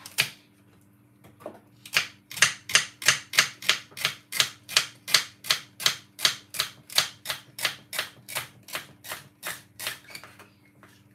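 Knife chopping celery on a wooden chopping board: a steady run of sharp knocks, about three a second, starting about two seconds in after a single knock at the start.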